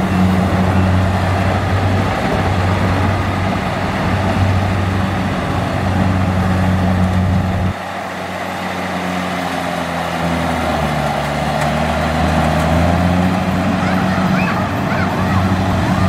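Kubota DC70 rice combine harvester's diesel engine running steadily under load as it cuts and threshes rice, a deep hum over the whir of the threshing works. About eight seconds in the sound drops suddenly and comes back quieter, then the engine pitch shifts and the level builds back up.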